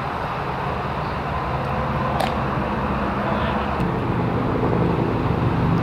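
Steady low rumble of outdoor ambient noise at a ball field, with one sharp click about two seconds in and a fainter one near four seconds.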